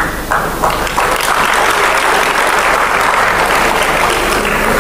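Audience applauding. It starts with a few separate claps and swells within about a second into dense, steady applause.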